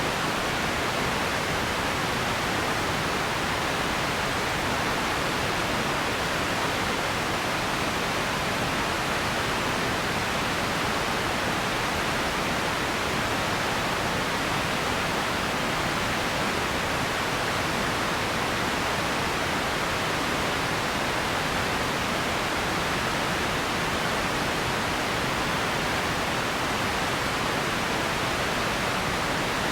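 Radio static: a steady, even hiss of noise with no tones or breaks.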